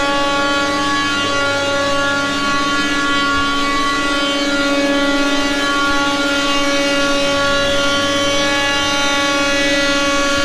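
Computer-controlled (CNC) workshop machine running loudly with a steady, unbroken whine.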